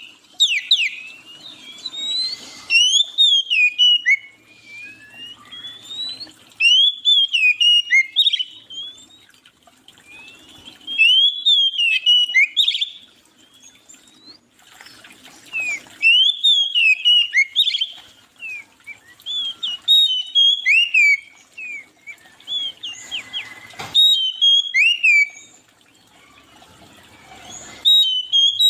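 A songbird singing: bursts of quick, sweeping whistled notes, phrases of a second or two repeated every few seconds with short pauses between.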